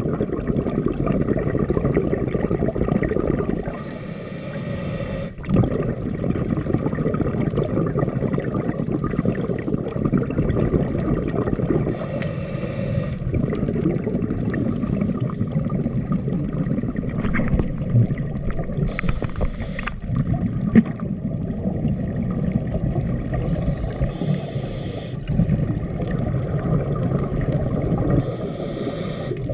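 Steady low rumbling water noise heard by a camera underwater, with a brief hiss every four to eight seconds.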